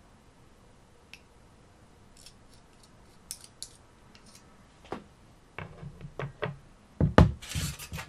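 A fork picking and pressing shisha tobacco into a hookah bowl, with faint scratches and small clicks. Near the end, aluminium foil crinkles loudly as it is picked up and handled.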